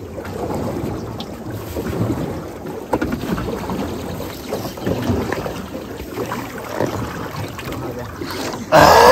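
Water sloshing and splashing as a hooked palometa is fought at the surface. A sudden loud burst comes near the end.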